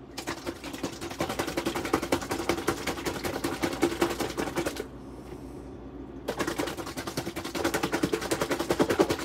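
Plastic meal-prep container of beef short ribs in marinade shaken hard by hand, its lid and contents rattling rapidly. The shaking comes in two bouts, with a break of about a second and a half in the middle.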